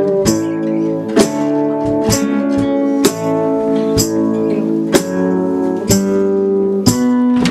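Acoustic and electric guitars played together in a loose jam, chords struck about once a second and left to ring.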